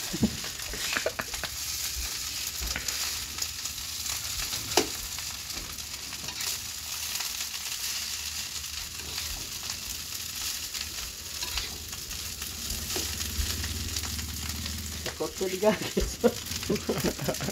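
Fried rice sizzling steadily in a pan on a gas stove while it is stirred with a spatula, with occasional scraping clicks of the spatula against the pan.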